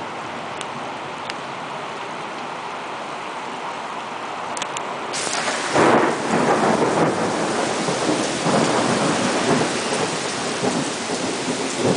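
Heavy rain pouring steadily. About six seconds in, a loud thunderclap breaks and rolls on as rumbling thunder over the rain.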